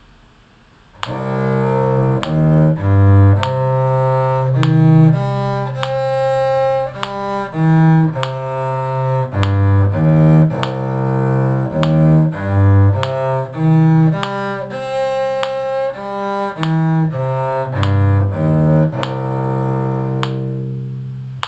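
Bowed cello playing a C minor arpeggio up and down, with notes changing every half second to a second over a steady low sustained note. It starts about a second in and stops just before the end.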